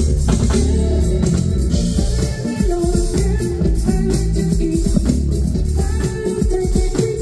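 Live band music: an electric bass guitar playing over a drum kit with steady cymbal strokes.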